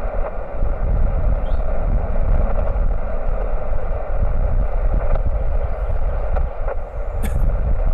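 Amateur radio transceiver's speaker hissing steadily with band noise while standing by for replies after a CQ call. Under it runs a steady low rumble.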